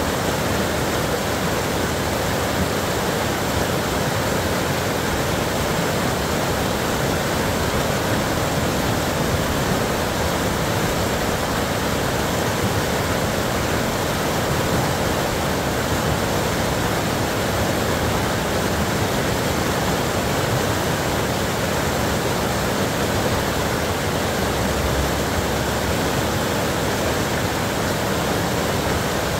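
River rapids rushing: a steady, unbroken wash of white water.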